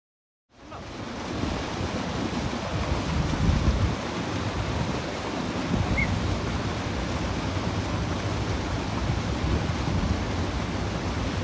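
A steady rush of water with wind buffeting the microphone, cutting in abruptly about half a second in, with stronger gusts of rumble now and then.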